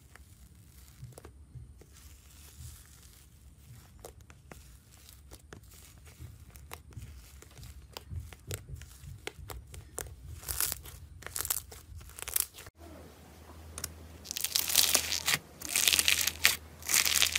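Hands stretching and pulling fluffy pink slime in a plastic tub, with scattered sticky crackles and pops that grow busier and louder. About 13 s in it cuts to fingers squeezing foam-bead slime (floam) in a jar, with loud, dense crackling and crunching.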